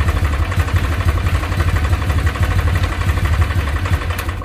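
Kawasaki W650's air-cooled parallel-twin engine idling steadily through its stock exhaust.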